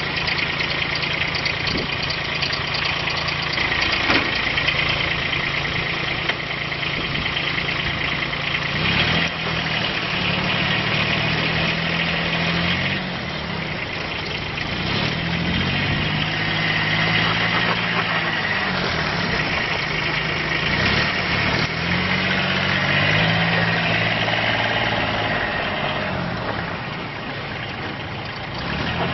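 Bobcat 3400 utility vehicle's three-cylinder diesel engine idling steadily, then running under way, its pitch rising and falling repeatedly with the throttle.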